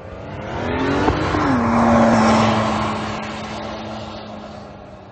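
Car engine revving hard as the car powers away through deep snow: the revs climb for about a second and a half, then hold nearly steady over the rush of snow and spinning tyres. It is loudest about two seconds in, then fades as the car pulls away.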